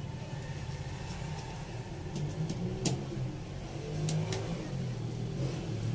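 A steady low mechanical drone runs under a few sharp clicks of a screwdriver working the terminal screws of a plastic switchboard sheet.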